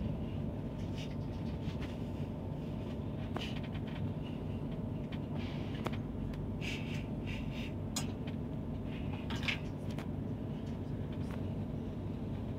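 Inside the cabin of an ETR 485 Pendolino tilting train rolling slowly into a station at about 35 km/h: a steady low rumble of wheels on track, with a few sharp clicks and short high squeaks, mostly in the second half.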